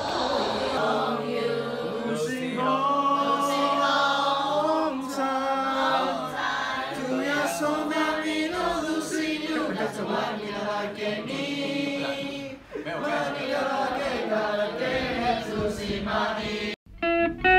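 A group of voices singing together like a choir, with long held notes and no instruments. The singing breaks off just before the end.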